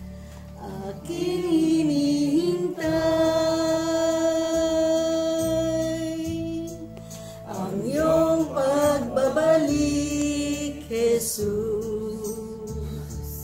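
A group of people singing a slow hymn together, with long held notes.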